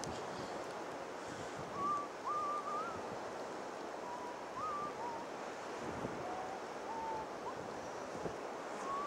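Steady rushing wind on the microphone, with a brief click at the very start and a handful of short whistled notes, some gliding upward, through the middle.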